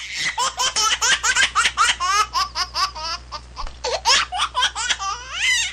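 High-pitched laughter from one voice in quick, repeated bursts, ending in a rising squeal.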